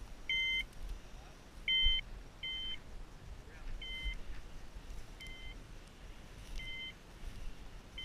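A hunting dog's electronic beeper collar sounding short two-pitch beeps, seven in all, about one every second and a half. The first few beeps are louder and the later ones fainter.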